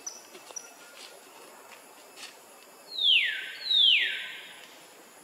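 Two loud animal calls less than a second apart, each falling steeply in pitch over about half a second, with a few faint high chirps before them.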